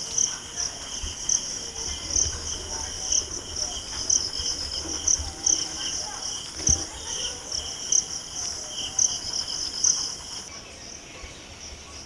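An insect trilling steadily, with a louder pulse about twice a second, cutting off suddenly near the end.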